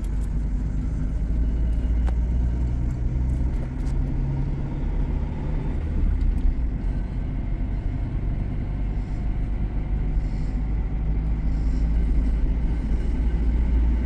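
Honda Civic's four-cylinder engine and road rumble heard from inside the cabin while driving in a low gear. The revs climb for a few seconds, then drop about six seconds in. The engine has a rod knock, and a loose exhaust heat shield adds a hideous noise.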